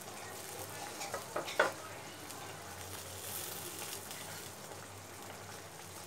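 Fish curry gravy simmering with a light sizzle in a steel wok. A few sharp ticks and crackles come about a second and a half in.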